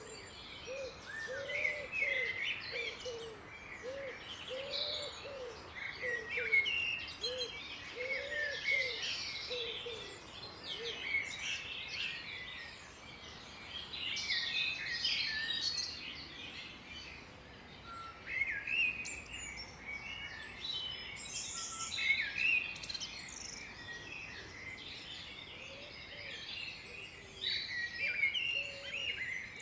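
A chorus of many songbirds chirping and trilling over one another. Through the first ten seconds or so, a lower note repeats steadily, roughly twice a second.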